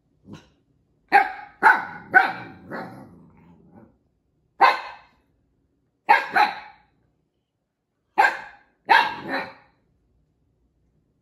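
Siberian Husky puppy barking in short groups: about ten sharp barks, two to four at a time, with a brief low growl after the first group. He is barking at an older dog that has taken his toy.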